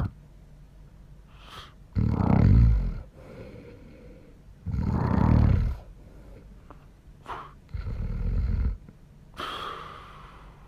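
A man snoring heavily in his sleep: four rumbling snores, each about a second long, coming every two to three seconds, the last one softer and breathier.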